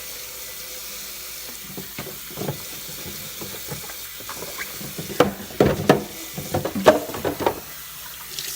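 Tap water running steadily into a kitchen sink while plastic refrigerator door bins are washed out. A series of clatters and knocks from the bins being handled comes about five seconds in.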